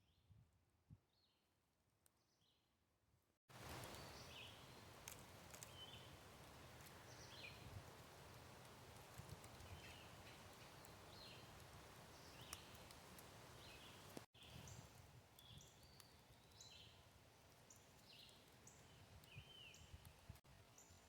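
Small birds chirping in short repeated calls over a steady rush of wind. The first few seconds are quieter, and the wind noise comes in abruptly about three seconds in.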